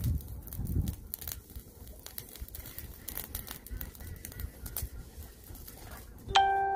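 Small wood fire crackling while dry twigs and grass are broken and fed into it, giving scattered sharp snaps and clicks, with a low rumble in the first second. Near the end a single sudden ringing note sounds and fades over about a second.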